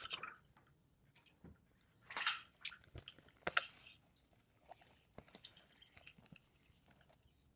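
Crackling and rustling of a clear vinyl case being handled, in short irregular bursts.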